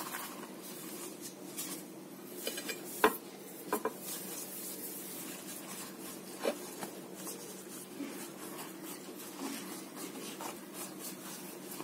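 Hands spreading raw minced-meat filling inside a flatbread loaf: soft rubbing and rustling of bread and meat, with a few light taps, the sharpest about three seconds in.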